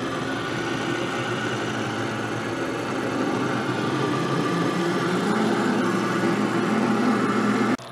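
Monarch model K engine lathe running at slow speed while a large twist drill feeds into the spinning metal workpiece, drilling the bore to final size. The steady machine noise grows slightly louder, then cuts off suddenly near the end.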